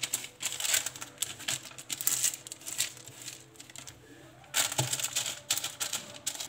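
Pastry brush swept back and forth over oiled baking paper lining a tray, the paper crinkling and rustling under the strokes, with a short lull about two-thirds through.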